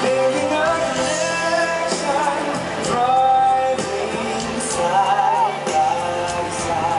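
Show music with a singing voice, a song with a melody that moves throughout.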